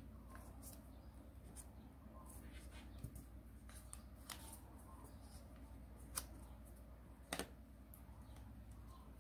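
15 cm square origami paper being folded and creased by hand: faint scattered crinkles and taps, with two sharper crackles late on. A low steady hum runs underneath.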